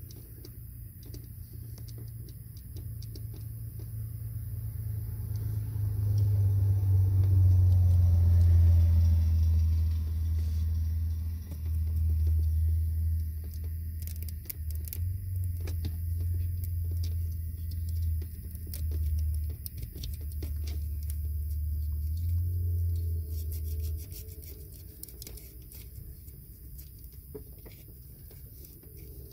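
A low, vehicle-like rumble swells over a few seconds, wavers, and stops about four-fifths of the way through, with light clicks of a wiring harness being handled.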